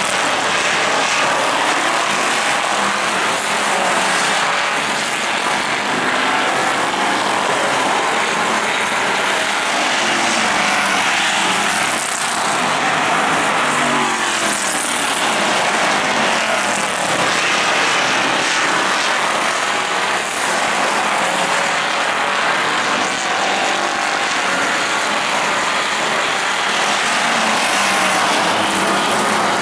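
A field of street stock race cars lapping a short oval at speed. Their engines make a continuous loud drone, with pitch sliding up and down as cars pass.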